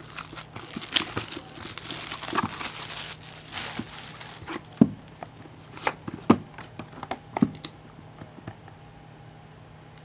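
Plastic shrink-wrap being torn and crinkled off a sealed box of baseball cards, followed by several sharp clicks and snaps about halfway through as the box is handled.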